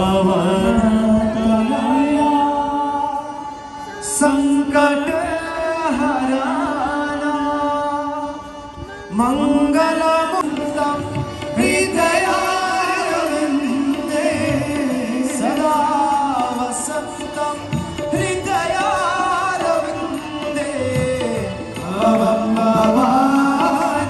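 Devotional aarti singing accompanied by harmonium and tabla. The voice holds long, gliding notes, with short breaks between phrases.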